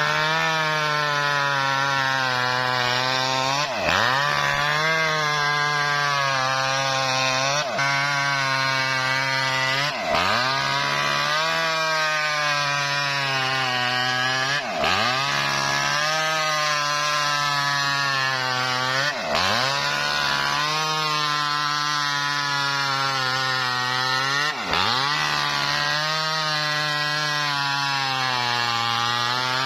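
Petrol-engine wood-cutting machine running under load as it saws lengthwise through a coconut-palm trunk. The engine runs at a high, steady pitch that dips sharply and recovers every few seconds, about eight times.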